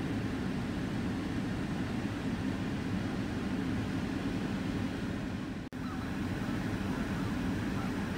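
Steady low rumble of a car running, heard from inside the car. After a brief break in the sound about six seconds in, faint honking from a flock of geese starts to come through.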